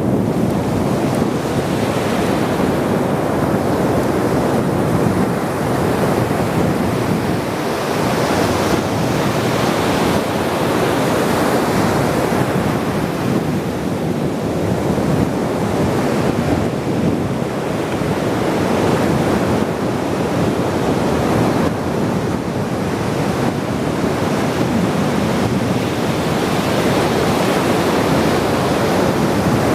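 Ocean surf: waves breaking and washing ashore in a continuous rush that swells and eases every several seconds, with wind buffeting the microphone.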